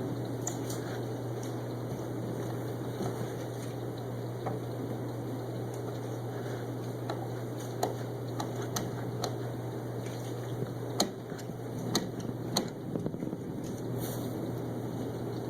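Steady background noise with a low hum, scattered with light sharp clicks and taps, a few louder ones in the second half.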